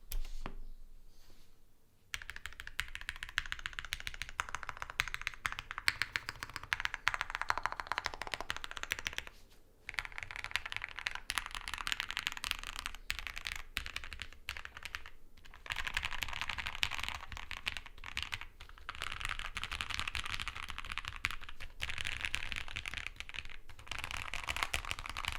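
Matrix Lab ME SE gasket-mounted mechanical keyboard with lubed Gateron Yellow Pro linear switches, an aluminium plate and GMK keycaps, typed on in several runs of rapid keystrokes with short pauses between them.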